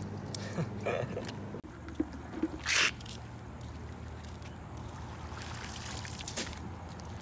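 Water trickling and dripping from a wet nylon cast net as it is handled and held up, with one short, louder rush of water about three seconds in. A steady low hum runs underneath.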